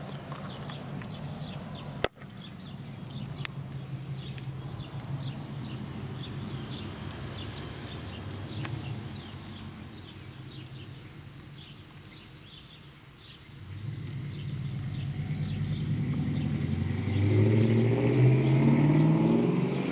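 A low engine hum, then an engine growing louder and rising in pitch over the last six seconds, typical of a motor vehicle approaching. There is a sharp click about two seconds in, and faint high chirps in the first half.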